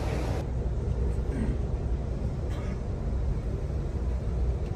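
Steady low rumble and hiss inside a moving passenger train car; the hiss drops away abruptly about half a second in.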